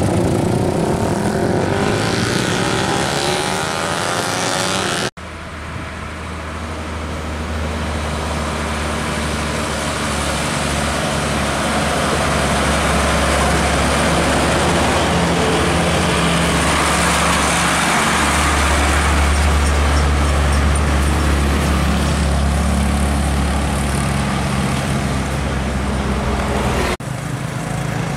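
Old heavy diesel trucks driving past on the road, a steady low engine drone with tyre and traffic noise, heard in separate clips that cut off abruptly about five seconds in and again near the end.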